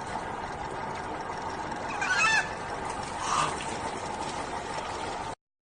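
Bird calls over a steady background hiss: a short call about two seconds in and another about a second later. The sound cuts off abruptly just before the end.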